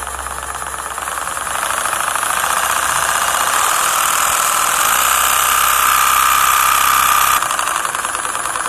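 Cut-open piston engine running fast, with a dense, rapid mechanical clatter from its exposed pistons and connecting rods. The noise grows louder after about two seconds, a steady high whine joins in about five seconds in, and both ease off near the end.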